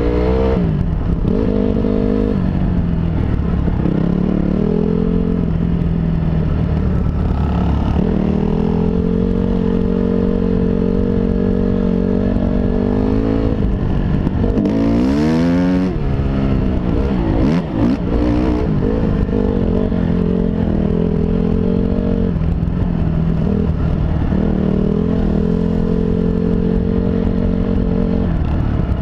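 2005 Honda CRF250R's single-cylinder four-stroke engine running while the dirt bike rides a dirt trail, its pitch stepping up and down with throttle and gear changes. About halfway through, the revs rise and fall in a quick sweep before settling back to a steady run.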